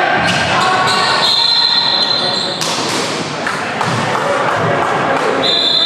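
Basketball bouncing on a gym floor, several sharp knocks, over a murmur of crowd voices in a large hall. A high steady tone sounds twice, each time for about a second.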